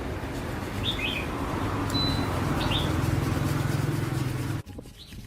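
Small birds chirping in short calls over a steady low mechanical hum, which stops abruptly about four and a half seconds in.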